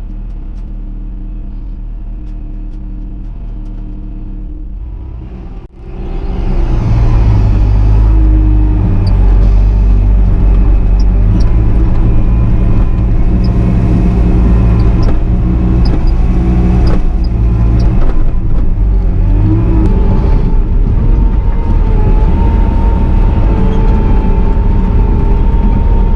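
Bobcat T650 compact track loader's diesel engine running at low throttle, then, about six seconds in, running loud at high throttle with a thin hydraulic whine and occasional clanks as it works gravel.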